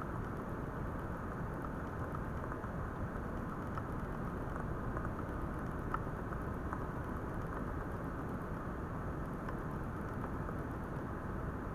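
Steady low rushing noise with faint scattered ticks, like light crackling or patter.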